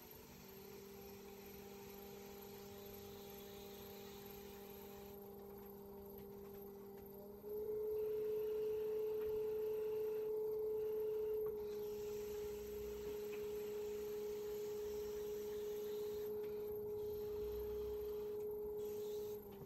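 Electric potter's wheel motor running with a steady hum. About seven and a half seconds in it steps up in pitch and gets louder as the wheel speeds up, then eases slightly a few seconds later.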